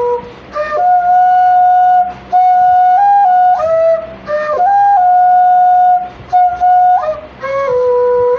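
Flute music: a slow solo melody of long held notes, with short breaks between phrases and a few slides up and down in pitch.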